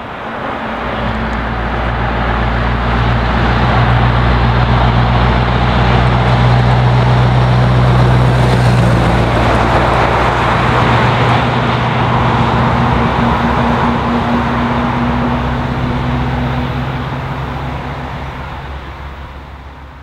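Scania R500 truck's straight-piped V8 diesel running steadily under power as it approaches, passes close by and pulls away. The deep engine note grows louder to a peak about halfway through, then fades.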